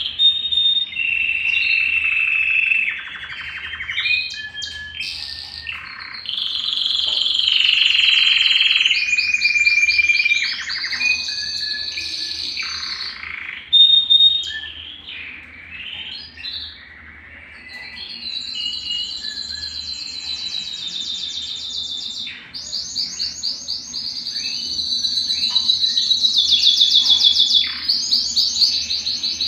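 Belgian canary (domestic canary) singing a long, nearly continuous song of held whistled notes and rapid trills, with short pauses between phrases. The loudest part is a fast trill near the end.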